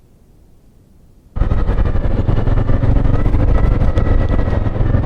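Faint hiss, then about a second and a half in, a sudden cut to a motor vehicle's engine running steadily and loudly with a low rumble.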